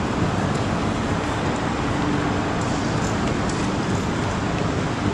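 Steady road-traffic rumble, an even noise with no single passing car or other event standing out.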